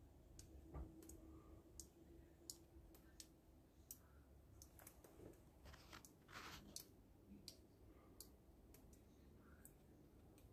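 Near silence broken by faint, irregular clicks and ticks, about one or two a second, with a brief soft hiss about six seconds in.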